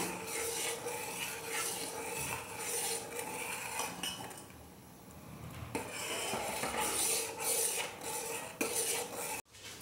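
Steel spoon scraping and stirring around the inside of a stainless steel pot of milk thickening with custard powder, with a pause of about a second and a half midway.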